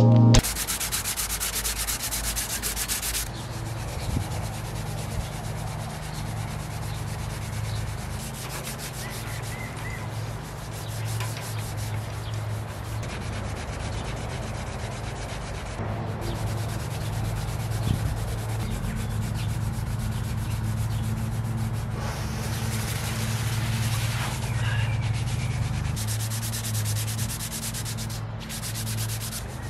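Hand-sanding a small wooden part: sandpaper rubbing on wood in quick, continuous back-and-forth strokes, with a steady low hum underneath.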